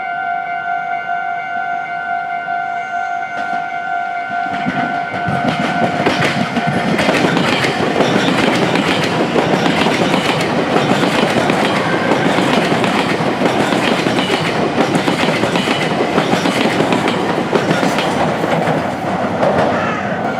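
A level-crossing alarm rings with a steady tone. About five seconds in, a Meitetsu train approaches and rolls past over the junction, its wheels clattering over the rail joints and drowning the alarm. The alarm is heard again as the train clears, near the end.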